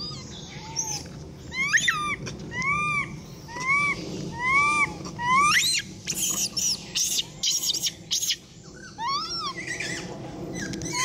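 A monkey giving a series of short, high calls that rise and fall in pitch, about one every half-second to second, with a cluster of sharp high squeaks in the middle and a few more calls near the end.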